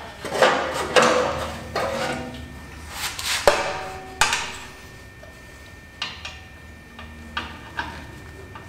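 Scattered metallic clicks and clanks, a few ringing briefly, as a steel exhaust spring is stretched and hooked across a side-by-side's exhaust pipe joint with channel-lock pliers.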